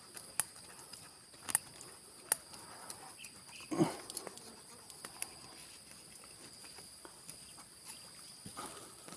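Insects buzzing steadily in two high tones, with a few sharp clicks in the first few seconds and a brief rustling knock about four seconds in.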